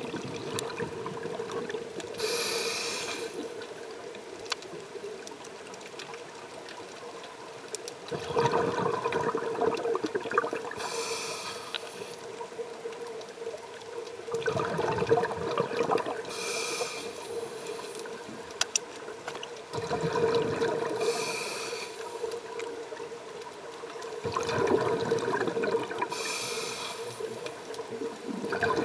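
Scuba regulator breathing heard underwater: a short hiss of each inhalation through the regulator, then a rushing bubble noise of each exhalation, in a slow cycle of about five breaths, over a steady hum.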